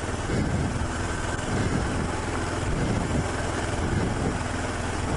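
Heavy adventure motorcycle's engine running steadily at low speed while riding a gravel trail, a continuous low rumble.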